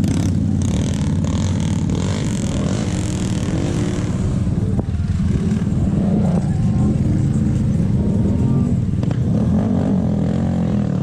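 Off-road vehicle engine running steadily, with faint voices in the background.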